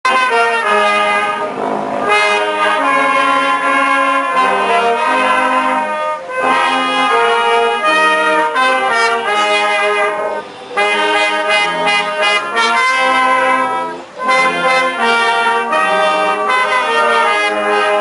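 Small brass band playing a tune in several parts, with tenor horns and euphoniums among the instruments. The phrases break off briefly about 6, 10 and 14 seconds in.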